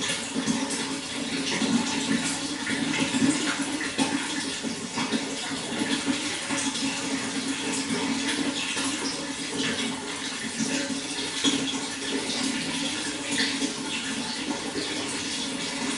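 Water running and splashing steadily, with a continuous crackling patter.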